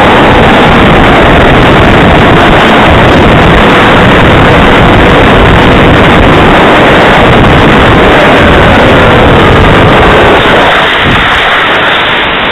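Heavy wind noise on the microphone, with the thin whine of the Sky Surfer 1400's electric motor sliding slowly down in pitch. About ten seconds in, the whine fades and the noise gets a little quieter.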